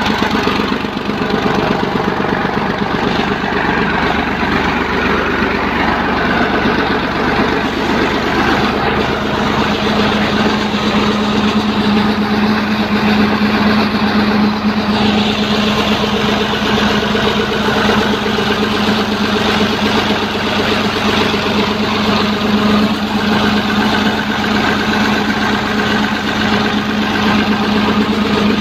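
Fiat 480 Special tractor's three-cylinder diesel engine running steadily at a constant speed while driving a tube well pump. A low hum in its note grows stronger about nine seconds in.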